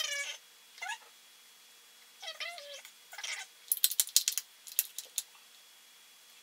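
A cat meowing four times in quick succession, short calls that slide up and down in pitch. A rapid run of sharp clicks follows about halfway through and is the loudest sound.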